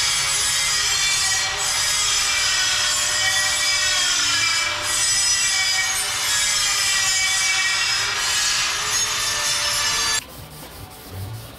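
Angle grinder grinding steel: a loud high whine over a harsh grinding rush, its pitch wavering slightly as the disc is worked against the metal. It stops abruptly about ten seconds in.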